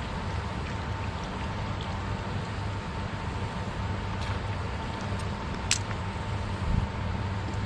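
Steady rushing of a flowing river with a low rumble underneath. About two-thirds through there is a single sharp click, and near the end a dull thump.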